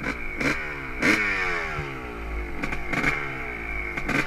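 Honda CR250R's single-cylinder two-stroke engine revved in about six quick throttle blips, its pitch falling away after each.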